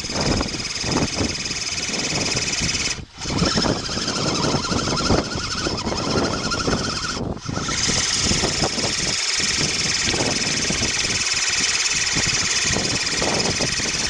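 A 6x6 RC crawler's electric motor and gearbox running with a steady whine, the sound dropping out briefly twice, about three and seven seconds in.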